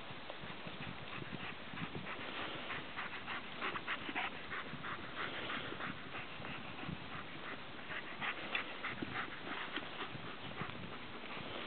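Sheep grazing close by, cropping and tearing grass: a quick, irregular run of short crisp rips and clicks.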